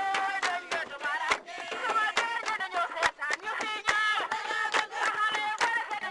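Music: singing voices over a steady beat of sharp percussive strokes.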